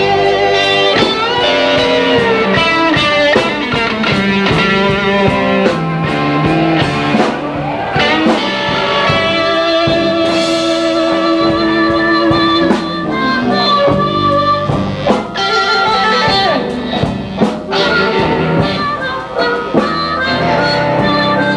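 Blues band playing live, with guitar to the fore and drums keeping the beat.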